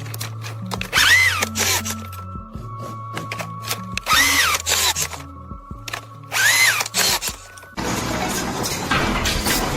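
Background music with three short bursts of a power tool whining up and back down in pitch, a few seconds apart; near the end a steady, harsher machine noise takes over.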